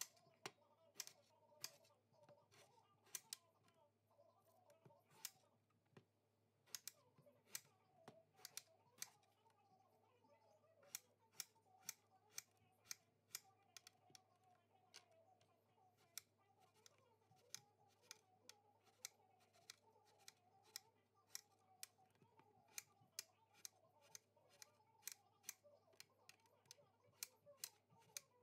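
Kitchen knife cutting eggplant on a thin plastic cutting board, the blade striking the board in sharp, irregular clicks a couple of times a second.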